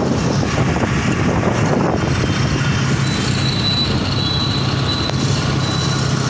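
Road vehicle in motion heard from inside: steady engine and road noise with a low hum, joined about halfway through by a thin, steady high whine.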